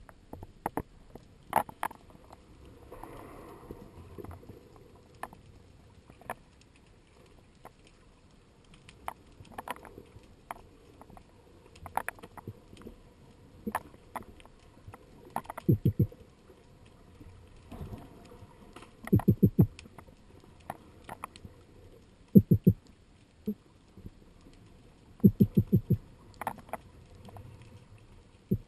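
Underwater sound picked up by a speargun-mounted camera: scattered sharp clicks and knocks throughout, and in the second half four short clusters of rapid low pulses.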